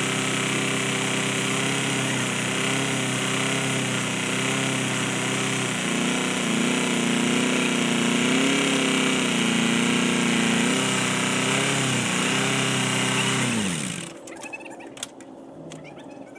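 Farm tractor's diesel engine running with a clattering beat, its revs and loudness rising about six seconds in, then shut off near the end, the pitch sagging away as it stops.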